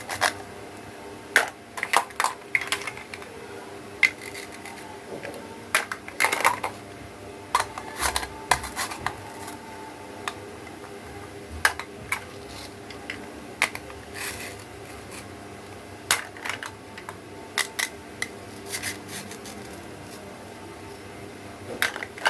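Small plastic toy pieces being handled: irregular clicks, taps and short clatters, a few of them slightly longer scrapes.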